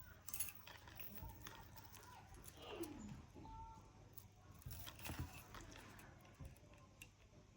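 Faint scattered clinks and light rattles of a stainless-steel chain and beaded necklace being handled, with a short falling tone just before the middle.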